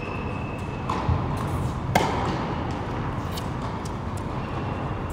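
Tennis ball struck by racket strings during a rally: a thud about a second in, then one sharp, loud racket hit about two seconds in and fainter hits later, over steady background noise.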